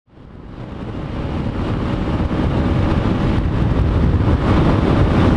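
Motorcycle riding along a road, its engine running steadily under heavy wind noise on the microphone, fading in from silence over the first second.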